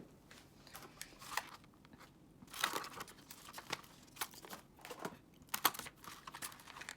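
Grocery packaging rustling and crinkling as items are unpacked, with scattered light clicks and knocks as things are picked up and set down; the loudest rustles come about two and a half and five and a half seconds in.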